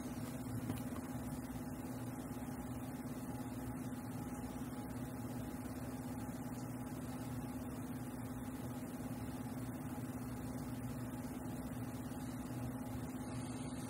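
Quiet, steady low hum with one constant tone held throughout: room background noise from a running appliance or electrical equipment.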